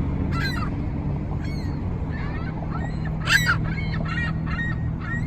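Seagulls calling over a steady low hum: a few short, harsh calls, the loudest a little over three seconds in, then a quick run of short calls.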